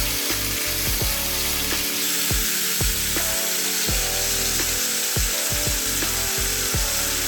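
Background music with a steady beat, deep bass notes and kick drum, over a steady high hiss of oxtail searing in hot oil.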